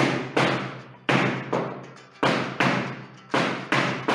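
Flamenco shoes stamping footwork (zapateado) on the studio floor: a series of sharp strikes, mostly in pairs about a third of a second apart, each ringing briefly in the room.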